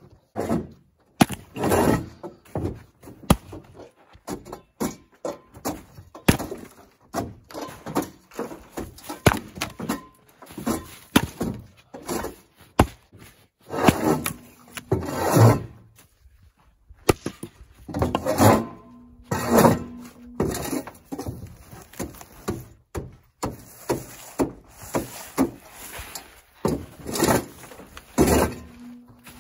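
Background music over repeated thunks of a splitting axe striking and splitting firewood rounds.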